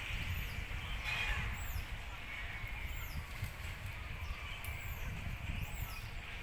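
Outdoor forest ambience: a steady low rumble on the microphone, with a faint high chirp that rises and falls, repeated about once a second.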